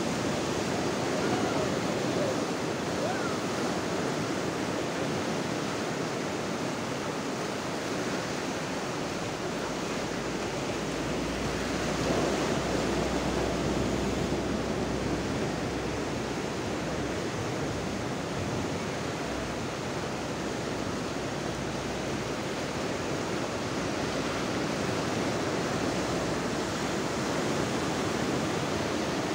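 Ocean surf breaking and washing up the shore: a steady rush of waves and foam that swells louder a couple of times, once near the start and again about twelve seconds in.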